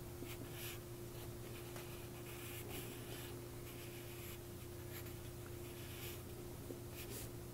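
Graphite pencil sketching lightly on paper: a run of short, faint scratchy strokes over a low steady hum.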